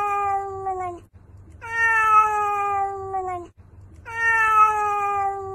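Domestic cat meowing: three long, drawn-out meows in a row, each sliding slightly down in pitch and almost identical in shape.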